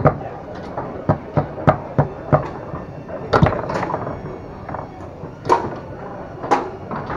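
Foosball in play on a Tornado table: irregular sharp knocks and clacks of the hard ball being struck by the plastic men and rods, several to a second at times, with louder shots about three and a half, five and a half and six and a half seconds in.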